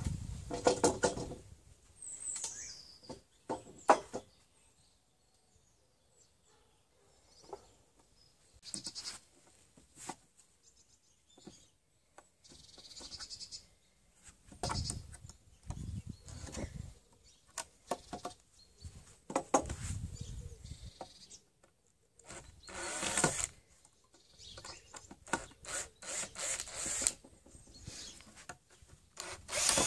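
Intermittent hand-tool work on a used timber beam as nails are pulled out: scattered knocks, short scrapes and squeals of steel tools and nails against wood, with pauses between them. Near the end a cordless drill starts up.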